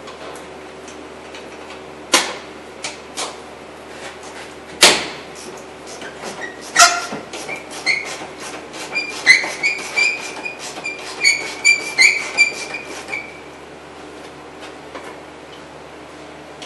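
Hand ratchet working the front strut's top-mount nuts loose, clicking in quick irregular runs with a metallic ring. There are a few sharp metal knocks of the tool before the runs, about 2 and 5 seconds in.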